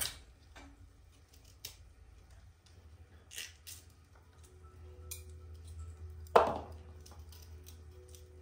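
Small knife cuts and clicks as fresh Brussels sprouts are trimmed by hand, with a louder knock about six seconds in, over a low steady hum.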